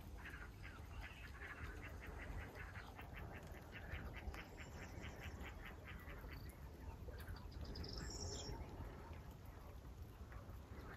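Ducks on a pond calling faintly in a rapid run of quacks, about four or five a second, for several seconds, then a short high bird call about eight seconds in, over a low steady rumble.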